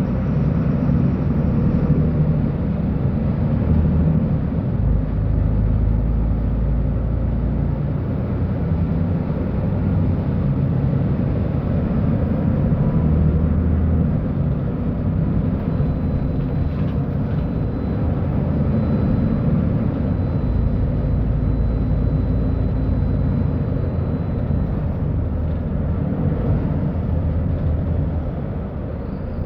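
Diesel engine of a Mercedes-Benz O-500U city bus with ZF Ecolife automatic transmission, running steadily with a deep low rumble that grows heavier about five seconds in and again about twenty seconds in.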